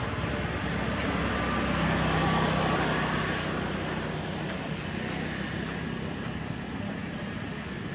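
Steady outdoor background noise with a low engine hum that swells and fades a couple of seconds in, as of a vehicle passing.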